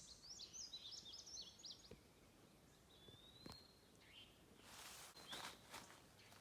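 Faint wild birdsong: a quick run of short chirps in the first second, then one long whistled note about three seconds in. A brief rustle with a few clicks follows near the end.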